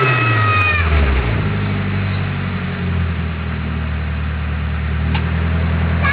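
Nissan Silvia S15's SR20DET turbo four-cylinder coming off the revs and settling into a steady idle. A high whine in the first second dies away as the revs fall.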